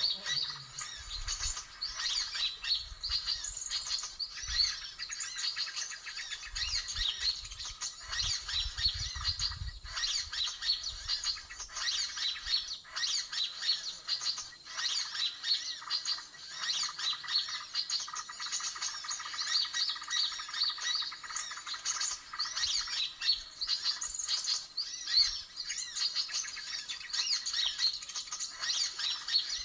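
Many small birds chirping and twittering in a dense, continuous chatter.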